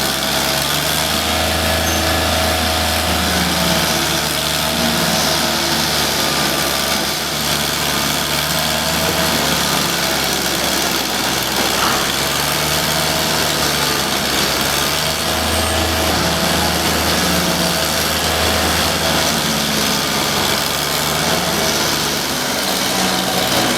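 A small engine running steadily without a break, with a low hum that swells and fades every several seconds.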